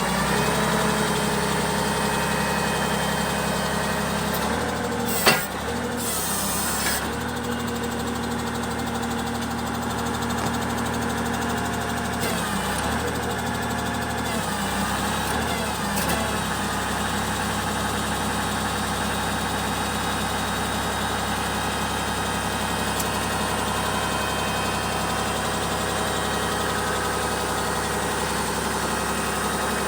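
Unimog FLU419's diesel engine idling steadily. About five seconds in there is one sharp loud clunk, followed by a brief hiss, and the engine note wavers a little around the middle.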